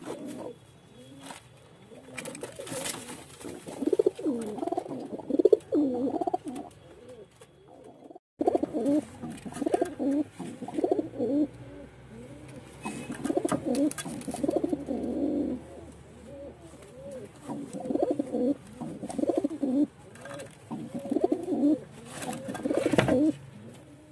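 Domestic pigeons cooing, low coos coming in repeated phrases, cut short by a brief break about eight seconds in.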